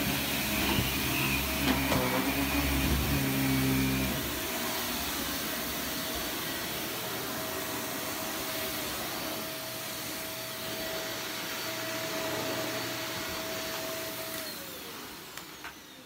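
Upright vacuum cleaner running steadily over a rug, with a steady whine; a deeper rumble drops away about four seconds in. Near the end the whine slides down in pitch and the sound dies away as the motor winds down.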